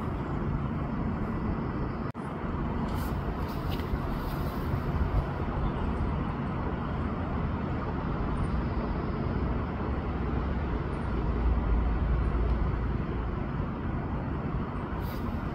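Steady low outdoor background rumble with no distinct event. There is a brief dropout about two seconds in, and the rumble swells at its lowest pitches for a couple of seconds near three-quarters of the way through.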